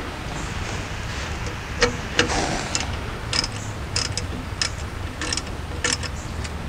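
Socket ratchet clicking in short, irregular runs from about two seconds in as a 10 mm wheel-cylinder bolt is turned out of a drum-brake backing plate.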